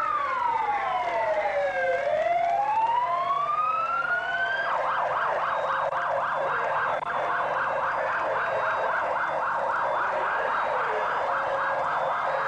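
Electronic siren sweeping down in pitch and back up. About five seconds in it switches to a fast, even warbling yelp.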